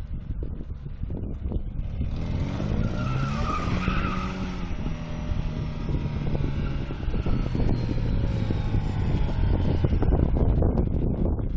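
BMW E36 sedan drifting in circles: the engine revs rise and fall while the rear tyres squeal and skid on the asphalt. It gets louder about two seconds in.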